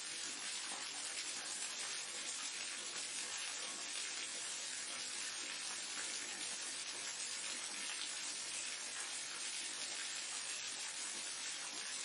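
Waterfall rushing steadily, mostly a high hissing spray with little deep rumble.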